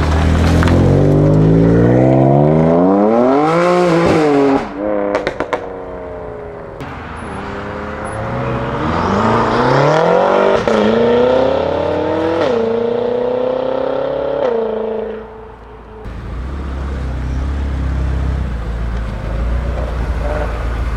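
BMW M car's engine and exhaust under hard acceleration. The pitch climbs steeply for about four seconds, then drops with a burst of exhaust crackles. It pulls again, each of three quick upshifts a sudden drop in pitch, then fades. A lower, steadier engine rumble follows near the end.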